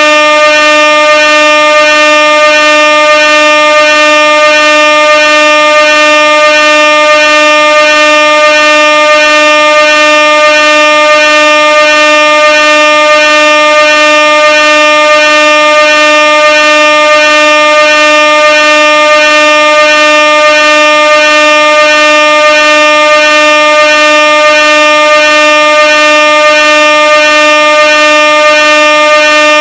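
Air horn sounding one continuous, loud, steady tone rich in overtones, its pitch unchanging.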